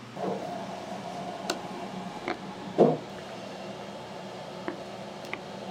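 Steady restaurant room noise with a fan-like hum, broken by a handful of sharp clinks and knocks. The loudest knock comes about three seconds in.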